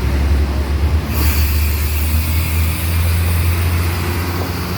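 Big road vehicle's engine rumbling close by, with a steady hiss that starts suddenly about a second in. No telolet horn is sounding.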